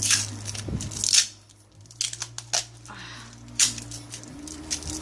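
Scotch tape being peeled and torn off a sealed bottle in several short, crackly pulls, over the steady hum of an electric fan.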